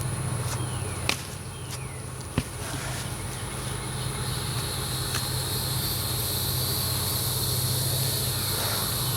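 A steady low engine hum over a steady insect buzz, which thickens from about four seconds in. Two sharp clicks come about one and two and a half seconds in.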